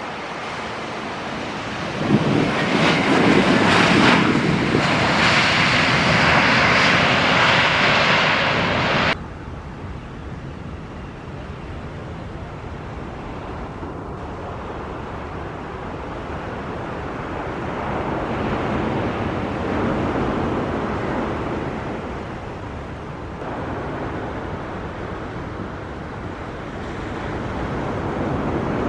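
Jet airliner engine noise during landings and approaches. A loud roar begins about two seconds in and cuts off suddenly about nine seconds in. Quieter jet noise then swells and fades, with wind on the microphone.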